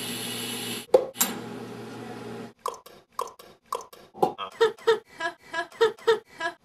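A push-button drinking fountain running its water stream in two spurts over the first two and a half seconds. Then a person making a quick run of hollow mouth pops, about three to four a second.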